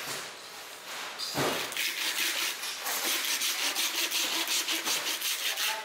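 A long knife sawing back and forth through the head and gill area of a whole large tuna, a rasping scrape on each quick stroke at about five strokes a second. A dull thump comes just before the strokes begin.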